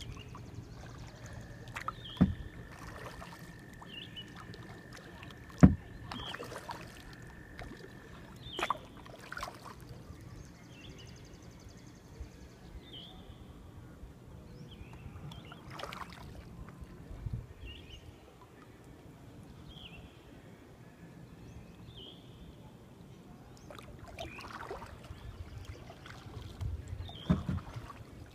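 Kayak paddling on calm lake water: paddle strokes and drips, with a few sharp knocks of the paddle against the kayak's hull, the loudest about six seconds in. A bird repeats a short high chirp every second or two, and a steady high tone sounds for the first several seconds.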